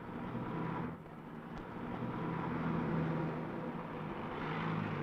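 Street traffic: motor vehicle engines running and passing, the level rising and falling.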